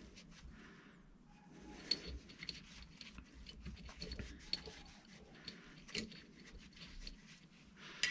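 Small metal brake caliper clips and pins clinking faintly against each other as gloved hands wipe them in a cloth rag, with scattered light clicks and soft rag rustling.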